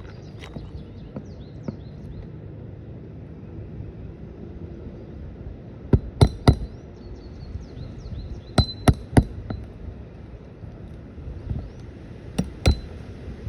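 Sharp, ringing metal-on-metal hammer strikes in quick groups: three a little before halfway, three more about two-thirds through, and two near the end. They come as roofing nails are worked out of asphalt shingles.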